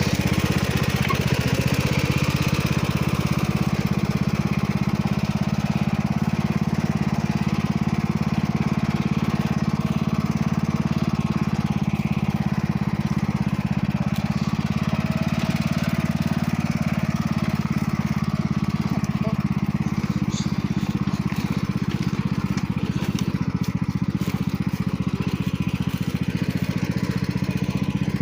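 Riding lawn tractor's engine running steadily at an even speed.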